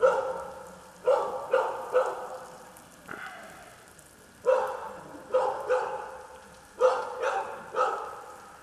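A dog barking over and over, in quick runs of two or three barks with short gaps between the runs.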